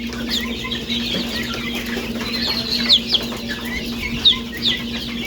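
Young chicks peeping: many short, high cheeps, each falling in pitch, overlapping, with a few louder ones near the middle and later on. A steady low hum runs underneath.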